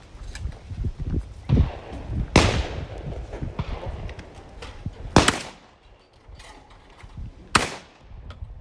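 Three shotgun shots, about two and a half seconds apart, each a sharp crack with a short fading echo; the first is the longest-ringing.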